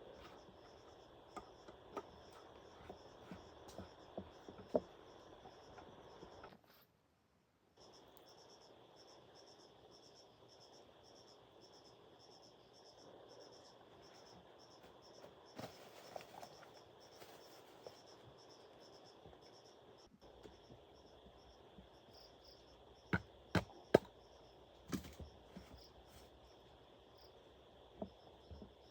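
Faint steady chirping of insects, pulsing evenly, with scattered light clicks and knocks over it and a few louder sharp knocks about three-quarters of the way through. The sound drops out completely for about a second around seven seconds in.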